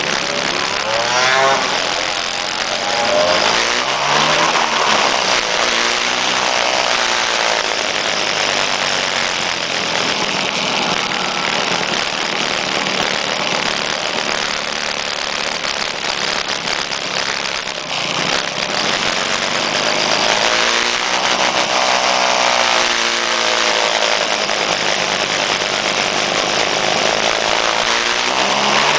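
Small two-stroke scooter engines running in a group ride. The pitch rises and falls several times as they accelerate and change gear, over constant wind and road noise.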